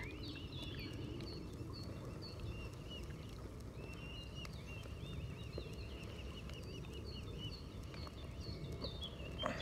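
Faint high-pitched bird chirps, short notes repeated in quick runs, over a low steady outdoor background hum.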